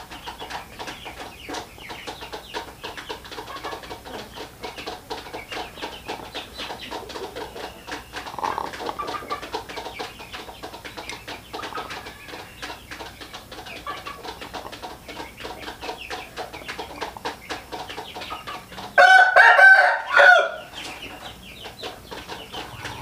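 Chickens clucking softly amid light clicking, then a rooster crowing loudly about nineteen seconds in, lasting about a second and a half.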